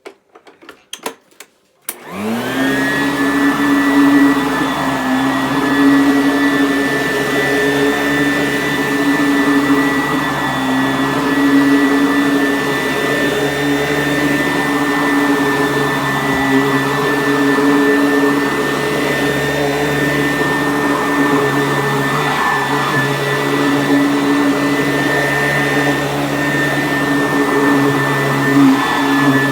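Sanitaire S663 vacuum cleaner switched on after a few clicks: its motor spins up about two seconds in and then runs steadily with a high whine while vacuuming.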